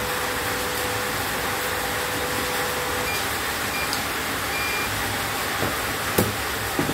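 Three short electronic beeps from a CNY E900 embroidery machine's control panel as its buttons are pressed, the third slightly longer, over a steady hiss of background noise. A few sharp clicks follow near the end, the loudest a little after six seconds.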